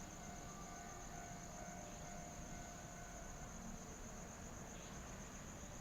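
Faint outdoor ambience: a steady high-pitched trill over a low rumble.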